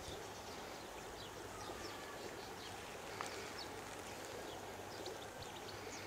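Faint, short high chirps of European goldfinches, scattered irregularly over a steady background hiss.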